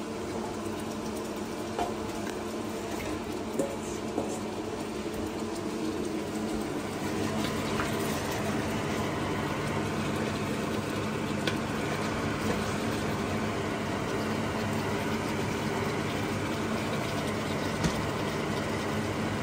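Marinated chicken and its liquid cooking in a hot stainless steel pot as it is tipped in and stirred with a wooden spoon, with a few short knocks of the spoon against the pot over a steady low hum.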